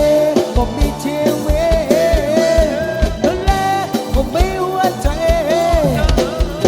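Live band playing a Thai mor lam song, with a drum kit beat under a melody line that slides up and down in pitch.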